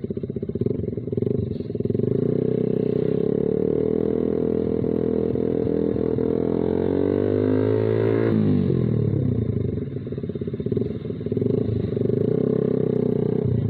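Suzuki Satria FU 150's carburetted single-cylinder engine through a Kau Mahachai racing exhaust, its note rising steadily for several seconds as the bike accelerates, then falling sharply about eight seconds in before running steadily again.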